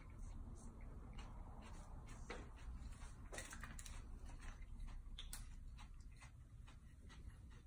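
Quiet room tone with scattered faint clicks and crinkles: a plastic water bottle handled and its screw cap twisted open.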